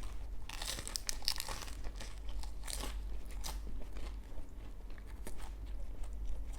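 Crisp bánh mì bread being bitten and chewed close to the microphone: a dense run of crackly crunches over the first few seconds, then slower, sparser chewing.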